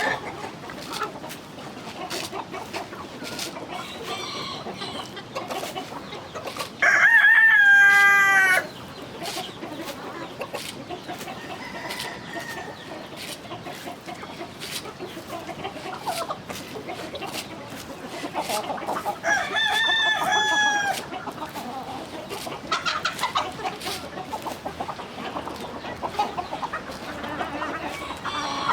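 A flock of chickens clucking steadily, with a rooster crowing twice: once about seven seconds in, loudest, and again about twelve seconds later.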